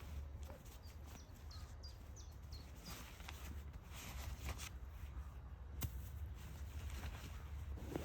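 A small bird chirping: a quick run of about five short falling notes between about one and two and a half seconds in. Under it is a faint low rumble and scattered soft ticks, with one sharp click near six seconds in.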